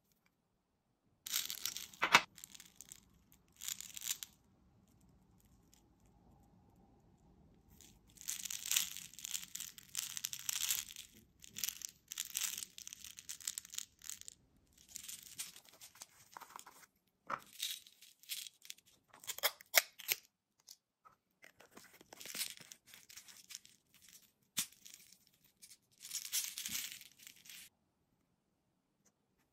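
Irregular rustling and scraping handling noises in short bursts, with a few sharp clicks, about two seconds in, near the middle and again a little later.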